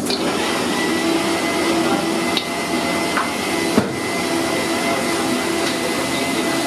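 Steady rushing noise of a high-flame stove burner under a steel wok, with one sharp metallic clink of the steel ladle against the wok about four seconds in.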